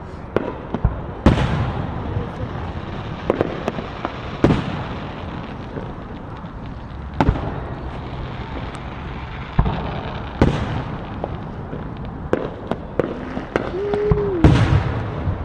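Fireworks going off: loud bangs every few seconds at irregular intervals, with many smaller pops over a steady crackle and rumble of more distant fireworks.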